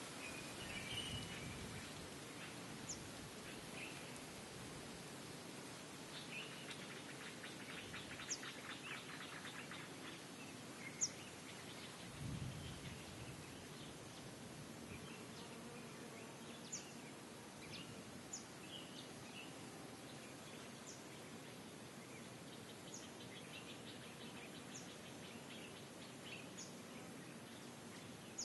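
Birds chirping over a steady background hiss: short high chirps every second or two, with two longer rapid trills, one a few seconds in and one near the end.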